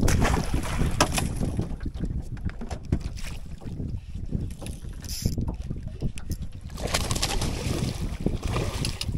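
Wind buffeting the microphone over open water, with a hooked fish splashing at the surface beside the boat during the last couple of seconds.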